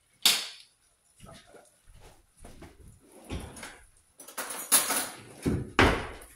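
A jar lid set down with a sharp clack on a glass cooktop, followed by scattered knocks and rattles of kitchen handling, with a louder clatter about four to five seconds in and another knock near the end.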